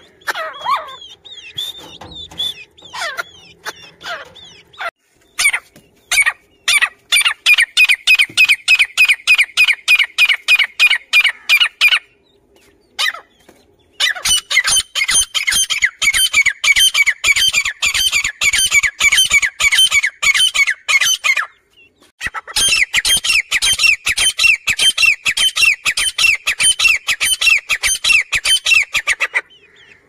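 Grey francolin calling in long bouts of rapid, shrill repeated notes, about four or five a second. There are three runs of several seconds each, after a few scattered shorter calls at the start.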